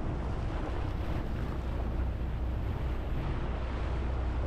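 Motorboat engine running steadily under way, with water rushing past the hull and wind on the microphone.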